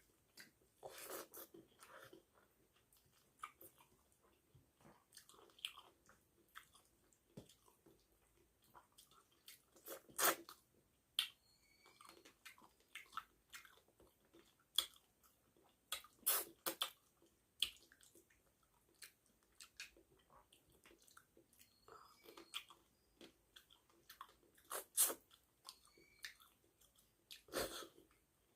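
Close-up eating sounds of a person chewing rice and fish curry: wet mouth clicks and lip smacks at an irregular pace, with a few louder smacks spread through.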